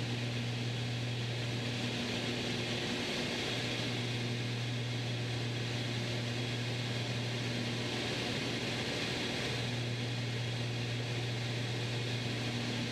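Steady drone of a Beechcraft Baron B55's twin six-cylinder piston engines and propellers, heard inside the cabin in flight.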